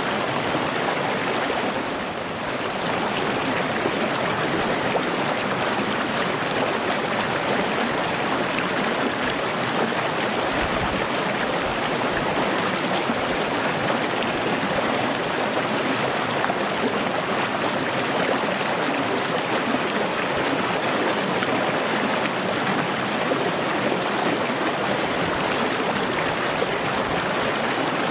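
Small, clear, rocky river running steadily over stones: an even, continuous rush of flowing water.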